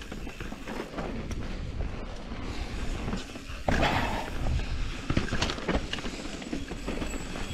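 Canyon Strive enduro mountain bike descending a dirt trail: tyres rolling and rumbling over dirt with wind noise on the camera's microphone. A sudden louder rush comes about halfway through, followed by sharp knocks and rattles as the bike drops through rocks.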